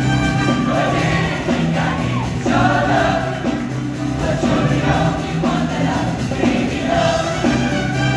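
A show choir singing in full ensemble over instrumental backing, with a steady bass underneath.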